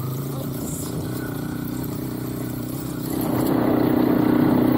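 Motorbike engine running on the move, then getting louder about three seconds in as it pulls harder.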